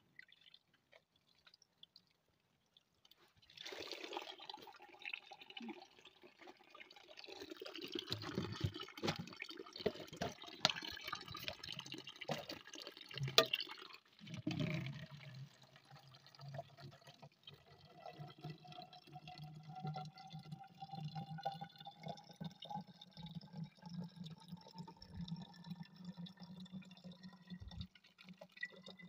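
Spring water pouring from a spout made of a cut plastic bottle into a plastic drinking bottle, starting a few seconds in, with splashing and a few knocks in the middle. In the second half the pouring rises slowly and steadily in pitch as the bottle fills up.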